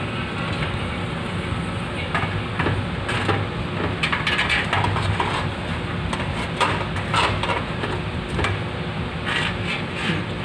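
Metal knocks and scrapes at irregular moments as a round electric hotplate is handled and set into a stainless steel stove top, over a steady low hum.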